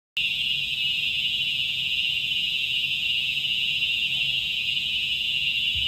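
Building fire alarm going off: a steady, high-pitched, unbroken tone that starts abruptly and holds level.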